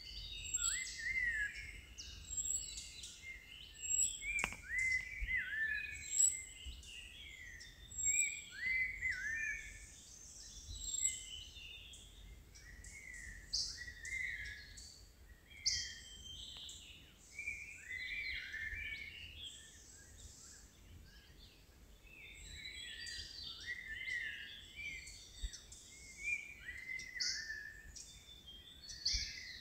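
Several birds calling and chirping, with short rising-and-falling whistled notes repeating throughout and a run of high thin notes about once a second in the first several seconds. A single sharp click about four seconds in, over a steady low rumble.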